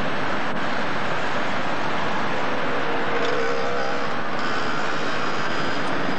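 Steady city traffic noise from passing cars and motorcycles, recorded on a home video camera's microphone, with one engine note standing out about three seconds in.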